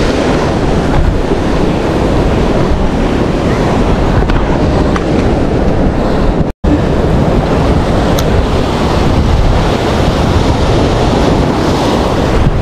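Wind buffeting the microphone over the wash of surf on the beach, a loud, steady rumbling noise. It cuts out for an instant about halfway through.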